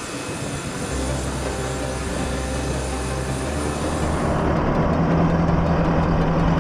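Aircraft turbine engines running steadily: a high thin whine over a low rumble. About four and a half seconds in the whine drops away and a lower, steady engine hum takes over.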